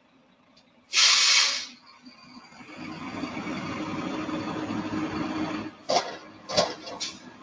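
Automated side-loader garbage truck: a short, loud hiss about a second in, then the hydraulic lifting arm running steadily for about three seconds as it raises a trash cart, and three sharp bangs near the end as the cart is shaken out over the hopper.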